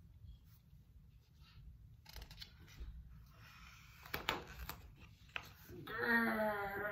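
Picture-book page being turned: paper rustling with a few sharp crackles. Near the end, a woman's voice gives a drawn-out wavering growl, 'grrrr', read off the page.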